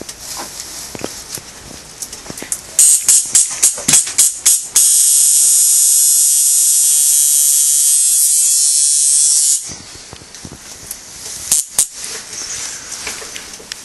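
Tattoo machine buzzing: a few short bursts about three seconds in, then a steady high-pitched buzz for about five seconds that cuts off suddenly.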